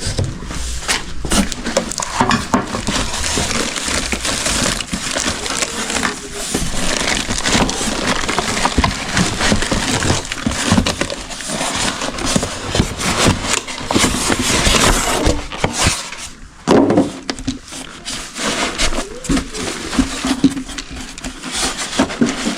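Packaging of a new air compressor being unpacked: cardboard and plastic handled and pulled apart, a continuous irregular crinkling, scraping and crackling, with a short lull about two-thirds of the way through.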